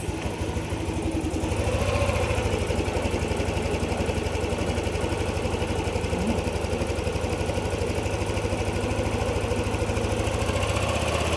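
Yamaha NMAX 155 scooter's single-cylinder engine starting at once on the starter, then idling steadily. It now starts easily after a new crankshaft position sensor, but the mechanic says the idle is still not right.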